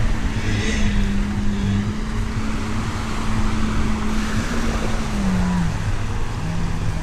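An engine's steady hum that slides down in pitch about five seconds in and climbs again near the end, over a continuous low rumble and noise.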